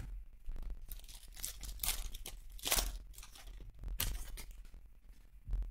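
Plastic-foil wrapper of a trading-card pack being torn open and crinkled by hand, in several short rustling bursts, with a sharp tap at the very start.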